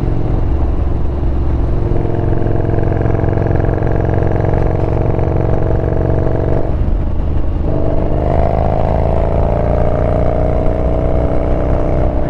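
Yamaha Bolt's air-cooled V-twin engine pulling under acceleration, its pitch climbing steadily, then breaking off for about a second around seven seconds in for an upshift and climbing again from a lower pitch. Wind rushes over the microphone underneath.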